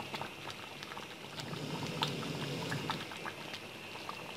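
A large pot of stewed potatoes bubbling at a simmer, with many small pops from bursting bubbles.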